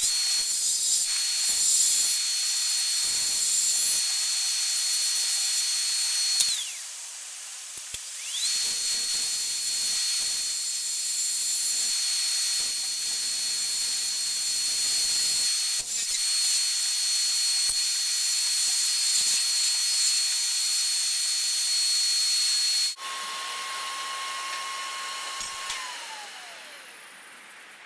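JET 4224B wood lathe running, with a steady high whine over a hiss. It winds down about six seconds in and starts up again two seconds later. After an abrupt break, a lower whine runs on and winds down near the end.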